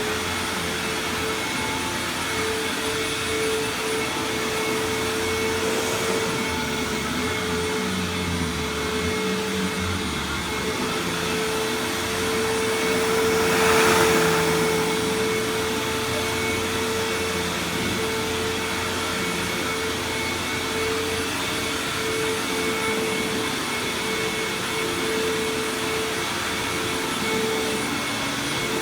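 A Hoover WindTunnel Supreme upright vacuum cleaner, about 25 years old, running loud and steady: a constant motor whine over the rush of air. It grows louder for a few seconds around the middle, then settles back.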